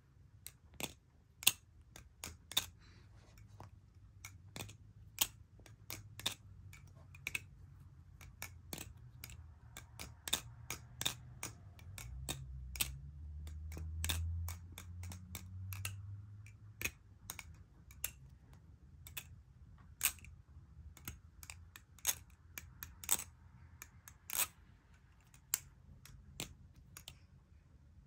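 Stitched Steel Alien balisong being flipped: irregular sharp metal clicks and clacks, about two a second, as the swinging handles strike the tang pins. A low rumble comes in about halfway through.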